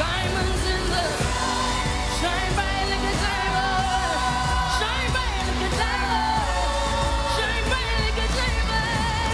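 A woman singing a pop song live into a microphone, holding long notes with vibrato, over a band backing with a steady low bass.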